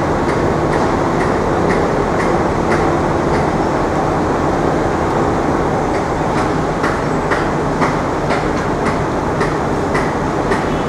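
Loud, steady city-street rumble, with light, regular ticks about twice a second from footsteps of someone walking.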